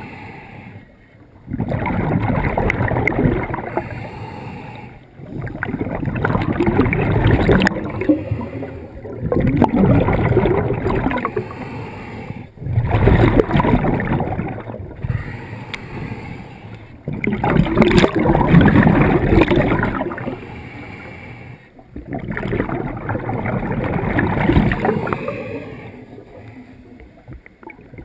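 Scuba diver breathing through a regulator, heard through the camera's waterproof housing underwater: each exhalation is a bubbling rush lasting two to four seconds, repeating about every four to five seconds, with quieter gaps for the inhalations.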